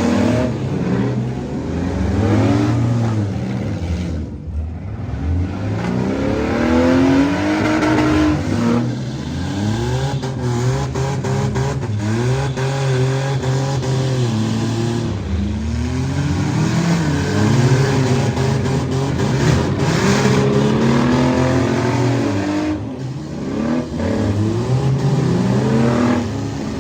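Several demolition derby cars' engines revving hard up and down over and over, their pitches rising and falling on top of one another, with scattered knocks and bangs from cars colliding.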